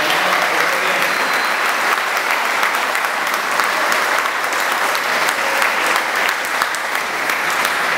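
Audience applauding: many hands clapping in a dense, steady patter that holds at an even level.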